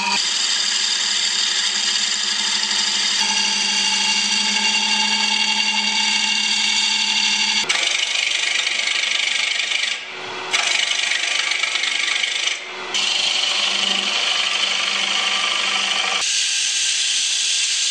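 Wood lathe running while a turning tool cuts the spinning segmented poplar-and-walnut blank: a steady scraping cut over the lathe's hum. The cut drops away briefly twice, about ten and twelve and a half seconds in, as the tool is lifted off the wood.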